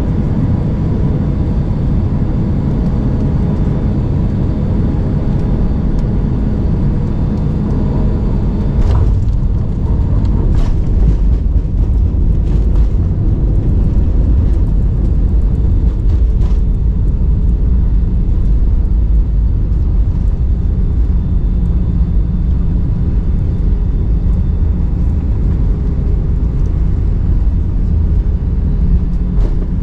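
Airbus A319 cabin noise at a window seat over the wing: a steady rumble of jet engines and airflow on final approach, with a faint hum. About nine seconds in the hum drops away and the rumble grows louder and rougher, with a few knocks, as the airliner touches down and rolls along the runway.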